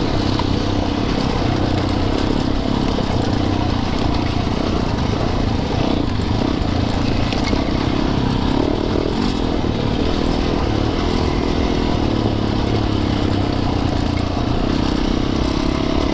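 Yamaha YZ450FX dirt bike's single-cylinder four-stroke engine running steadily as it is ridden, its pitch rising and dipping a little with the throttle.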